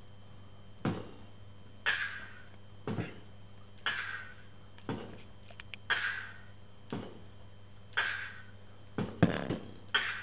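Vocal beatboxing: a slow, even beat of about one hit a second, a deep kick sound alternating with a snare sound that has a hissing tail, with a quicker double hit near the end.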